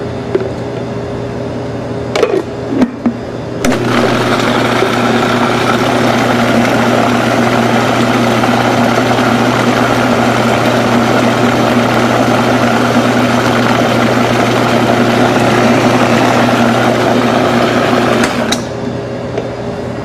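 Food processor motor blending a thick batter of flour, Parmesan, egg and milk: after a couple of knocks it starts about four seconds in, runs steadily for about fifteen seconds, and cuts off near the end.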